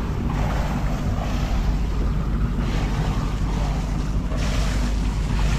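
Wind buffeting the microphone over waves washing past a sailboat at sea, a steady rush with a low rumble and a faint steady hum underneath.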